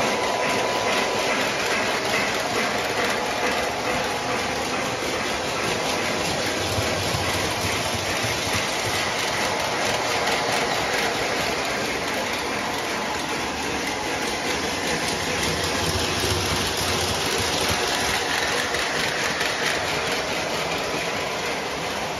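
O scale model trains running on the layout's track: a steady rumble of wheels and motors with a faint hum.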